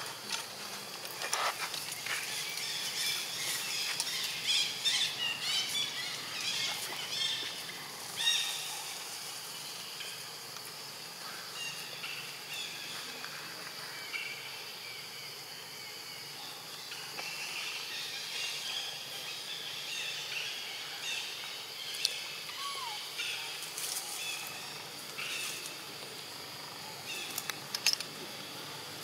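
Forest ambience: a steady high hum under many short, high-pitched chirps and squeaks from wild animals, with a few sharp clicks, the loudest about eight seconds in and near the end.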